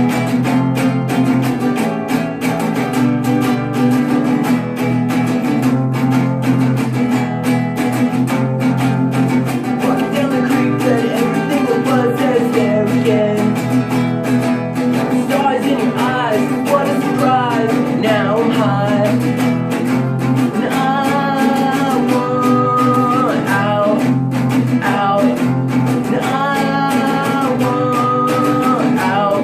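A song played on strummed acoustic guitar, with a voice singing over it that comes in more strongly from about halfway through.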